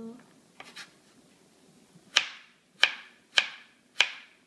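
Chef's knife slicing a radish thinly on a plastic cutting board. A couple of faint cuts come first, then from about two seconds in a steady run of sharp knocks, about two-thirds of a second apart, as the blade strikes the board.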